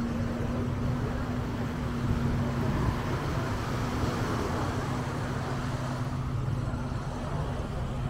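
A steady engine hum over a wash of outdoor noise.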